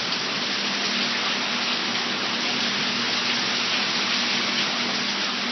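Heavy downpour of rain mixed with hail, a steady dense hiss of water hitting and running off surfaces. A faint steady low hum sets in about a second in.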